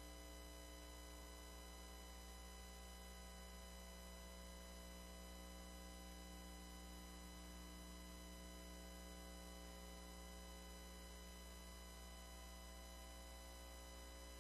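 Near silence: only a steady faint hum and hiss.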